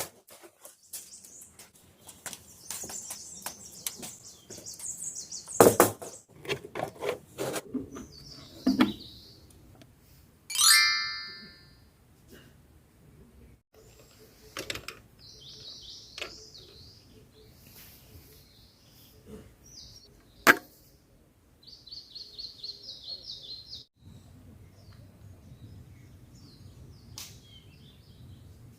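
Small forest birds chirping in repeated high phrases, mixed with scattered clicks and knocks of camping gear being handled. About ten seconds in there is a single louder pitched sound, and just after twenty seconds a sharp knock.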